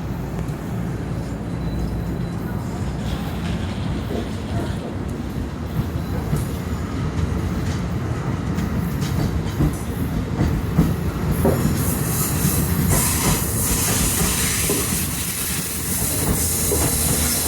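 Commuter train moving along the track: a steady rumble of wheels on rail, with high-pitched wheel squeal building about two-thirds of the way through.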